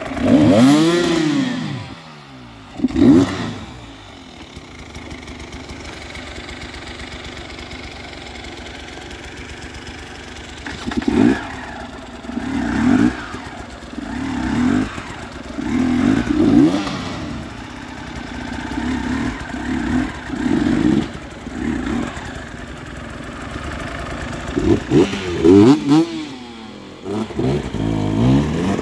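Enduro dirt bike engines revving hard in repeated short bursts, the pitch rising and falling with each blip of the throttle, as the bikes fight for grip in deep mud. A burst of hard revving comes right at the start, a steadier run of blips every second or two comes through the middle, and another burst comes near the end.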